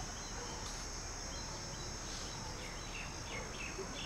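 Outdoor ambience: a steady high-pitched insect buzz with scattered short bird chirps, more of them in the second half, over a low background rumble.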